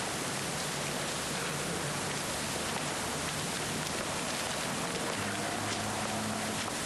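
Steady hissing noise with no distinct events, a faint low hum rising under it near the end, then cutting off suddenly.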